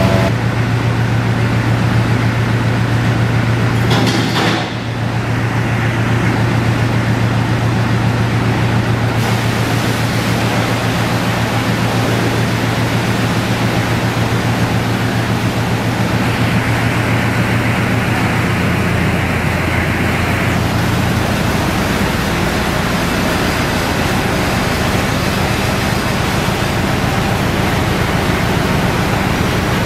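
Vacuum truck running with a steady low hum while liquid gushes out of its large discharge hose into a floor drain. About two-thirds of the way through the hum stops, leaving only the rush of the flowing liquid.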